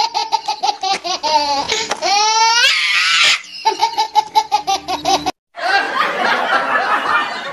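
High-pitched laughter in quick, even pulses, with a rising whoop about two seconds in. It cuts out abruptly for a moment about five seconds in, then carries on rougher.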